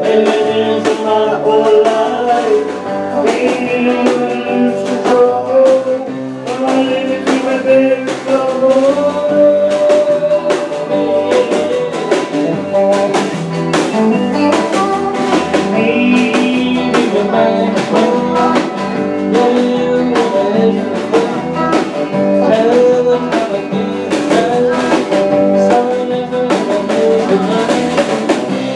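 Live band playing a dance tune: electric guitar and held melody notes over a steady drum-kit beat.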